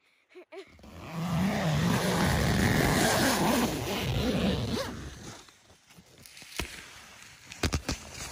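Tent door zipper pulled open in one long rasp, from about a second in until about five seconds in. This is followed by a few sharp crunches and clicks, like steps on frosted grass.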